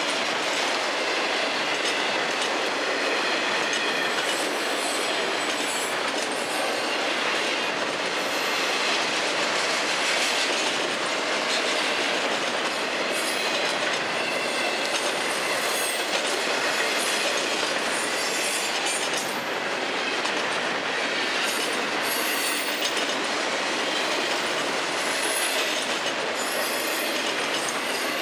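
A freight train's cars rolling past at track level: a steady clatter of wheels over rail joints, with short high wheel squeals several times.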